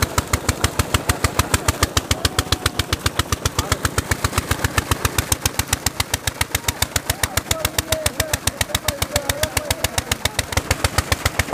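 Small single-cylinder diesel engine running steadily under load, driving a tubewell water pump, with an even knock of about eight firing beats a second. Water splashes from the pump's outlet pipe.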